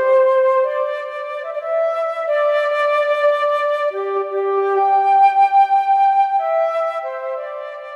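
Background music: a slow melody of long held notes with no beat.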